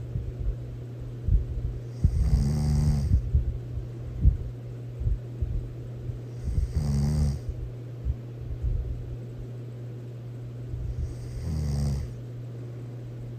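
A person snoring loudly: three long snores spaced about four to five seconds apart, each with a breathy hiss, over a steady low hum.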